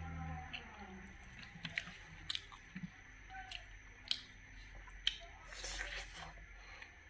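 Close-miked eating: wet, squishy chewing of wood larvae and rice, with scattered sharp clicks and crunches from the mouth and a short rustle as a handful of food goes into the mouth near the end.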